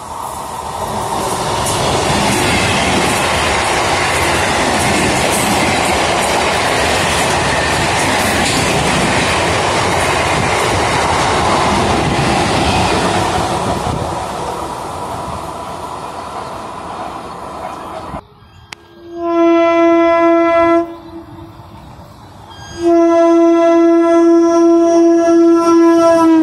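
Electric multiple unit (EMU) commuter train running through at speed, a loud rush of wheel and rail noise that swells and then fades away. After a cut, another EMU's horn sounds twice: a short blast, then a longer steady one.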